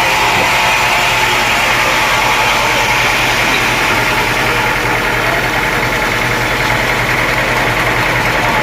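Sawmill's engine running steadily, with an even whine over a low hum.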